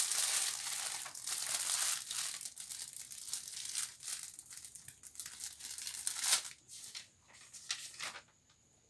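Plastic packaging crinkling and rustling as it is handled, mixed with the rustle of a folded paper slip being pulled out and opened. The loudest crackle comes about six seconds in, and the rustling fades to quiet near the end.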